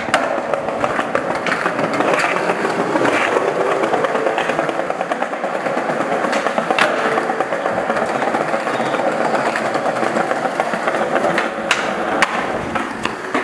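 Skateboard wheels rolling on smooth concrete, with a few sharp clacks from the board popping and landing.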